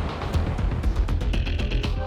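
Background soundtrack music with a heavy bass beat and quick percussion, and a high figure that repeats about every two seconds.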